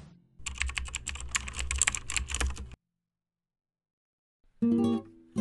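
Rapid typing on a computer keyboard, dense clicking for about two seconds, then stopping. Near the end, plucked guitar notes begin.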